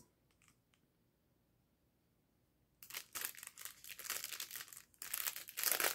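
Clear cellophane bag crinkling as it is handled. It starts about three seconds in and gets louder near the end.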